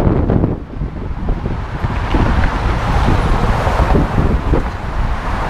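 Wind buffeting the microphone over the steady hiss of road traffic, with a car passing close by around the middle, its tyre noise swelling and then easing off.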